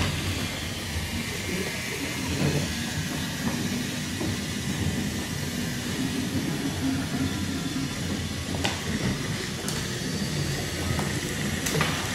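Battery-powered Brio wooden toy trains running: small electric motors whirring steadily as the wheels roll over wooden track. A few sharp clicks come near the end.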